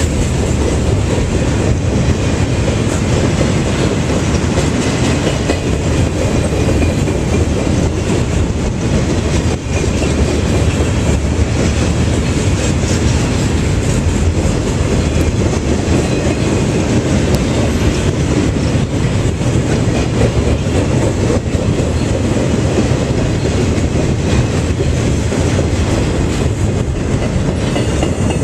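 Freight cars of a loaded CSX rail train rolling past close by: a steady, loud rolling noise of steel wheels on the rails, with many small clicks from the wheels over the track.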